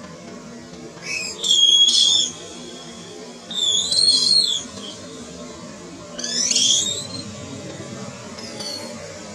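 Young long-tailed macaque screaming: three loud, high-pitched shrieks of about a second each, then fainter calls near the end, over quiet background music.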